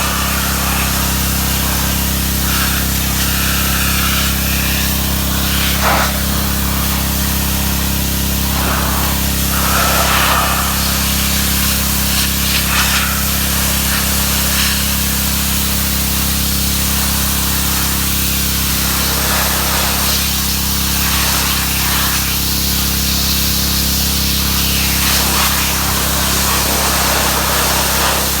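Pressure washer running steadily, its high-pressure water jet spraying onto the truck's bodywork with a hiss that shifts in strength as the wand moves.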